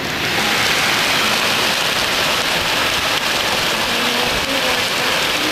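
Hailstones and heavy rain pelting down on a flat roof and garden: a dense, steady clatter of impacts.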